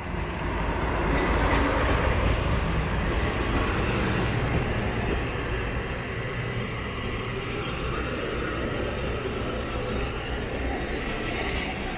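DE10 diesel-hydraulic locomotive hauling the Kushiro Shitsugen Norocco train past along the station platform. Its engine hums low and steady under the rumble of the rolling carriages. It is loudest one to three seconds in, as the locomotive goes by.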